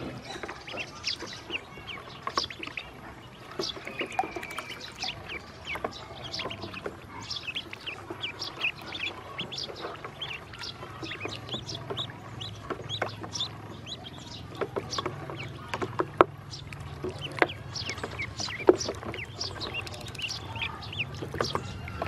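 Ducklings peeping in short, high chirps as they paddle and splash in a shallow plastic tub of water. A few sharper, louder clicks stand out in the second half.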